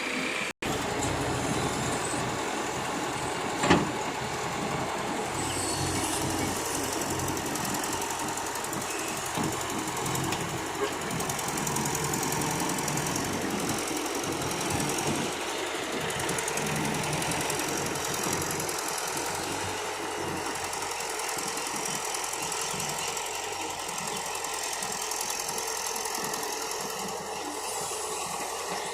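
Diesel engine of an excavator running steadily, with one sharp knock about four seconds in.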